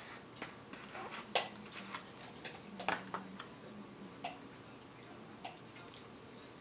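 Sporadic sharp clicks and taps of a metal fork against a plastic takeout container, with small mouth sounds of eating between them. The loudest click comes about one and a half seconds in.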